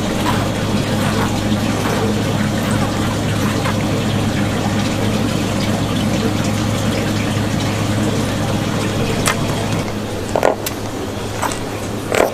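Steady rush of running water, like a kitchen tap or a tank pump, over a low steady electrical hum, with a few short clicks and knocks near the end.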